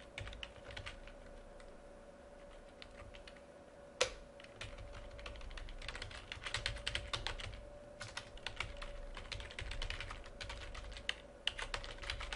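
Typing on a computer keyboard: scattered keystrokes at first, one louder key click about four seconds in, then quicker runs of typing. A faint steady hum lies underneath.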